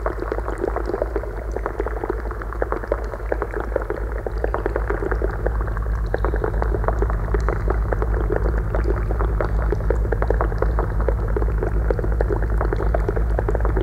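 Amplified water sounds from glass bowls, played live through a mixing desk: a dense, continuous crackling like bubbling liquid over a steady low drone, growing slightly louder about halfway through.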